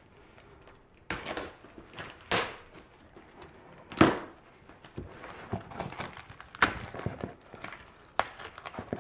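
Tight plastic stretch wrap being slit with a utility knife and pulled off a cardboard box: crinkling and a series of short sharp rips and knocks, the loudest about four seconds in.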